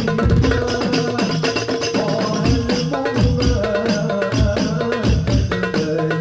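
Darbuka played by hand in a fast, steady rhythm, mixing deep low strokes with sharp rim strokes, alongside other hand percussion.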